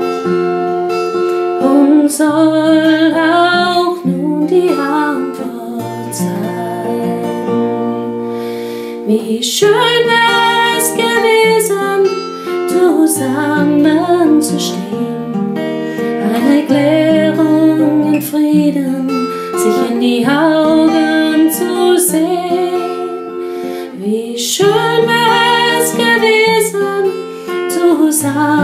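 A woman singing a German song while strumming chords on an acoustic guitar.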